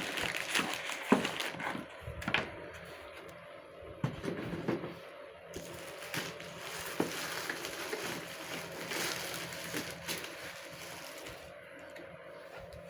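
Handling of a robot vacuum's plastic parts and packaging: scattered clicks and knocks over rustling.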